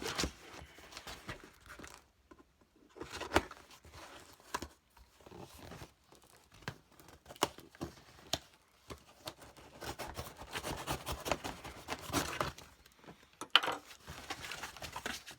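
A cardboard package being cut open with a knife and torn open: irregular scraping, tearing and crinkling of tape, cardboard and packaging, with scattered sharp clicks.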